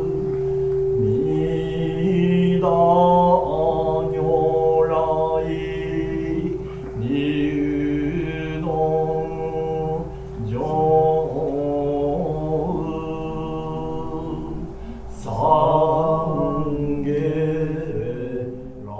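Buddhist sutra chanting: a voice intoning in melodic phrases, with short breaks between them, over a steady held drone.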